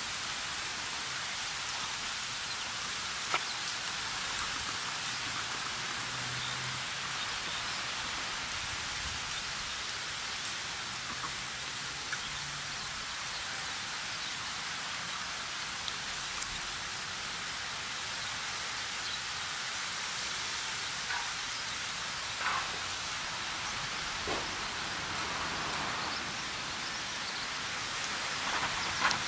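Steady, even outdoor hiss with a few faint, scattered ticks.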